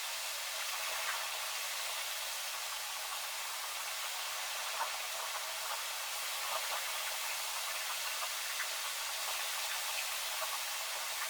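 Steady hiss of falling rain, with a few faint ticks of drops striking something close by.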